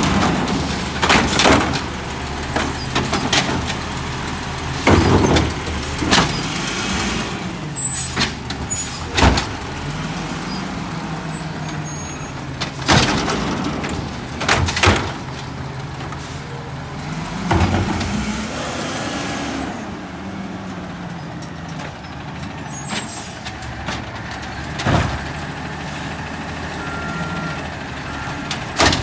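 Natural-gas automated side-loader garbage truck running at the curb as its arm lifts and dumps carts: a steady engine hum with repeated sharp bangs of carts and trash hitting the hopper. Around the middle, the engine pitch rises and falls as the truck works and pulls ahead.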